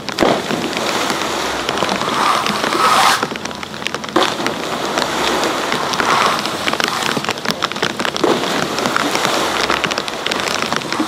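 Steady hissing, crackling rush of pool water churned white by the landing pool's bubbler air jets, with a sharper splash just after the start as a rider comes down from the ramp.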